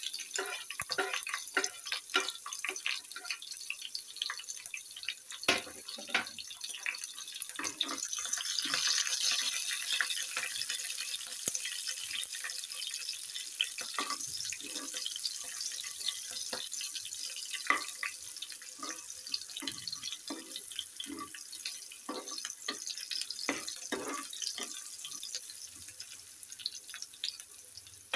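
Tadka of green chillies, curry leaves and mustard seeds sizzling and crackling in hot oil in an aluminium pan, stirred now and then with a steel spoon. The sizzle swells a little about eight seconds in.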